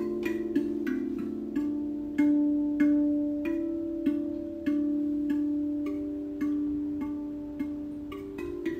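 Background music: a light instrumental tune of short, ringing notes, a bit under two a second, over held lower tones.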